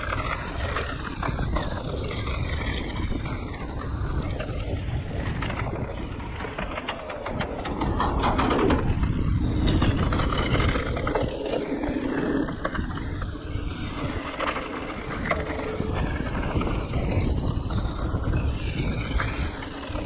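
E-mountain bike ridden down a rough trail: a steady low rumble of tyres and wind noise, with frequent small clatters and knocks from the bike over roots and stones, a little louder about halfway through.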